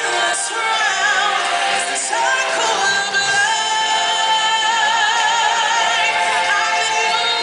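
Live stage-show music: a group of singers over backing music, with a lead voice holding long, wavering notes.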